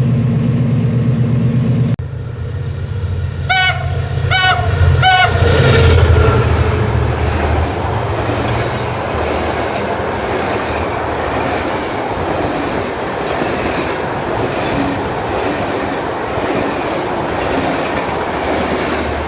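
A General Electric diesel locomotive's engine running steadily. After a sudden change, a train horn gives three short blasts about a second apart, and then the train's wheels rumble and clatter over the station points as it pulls out.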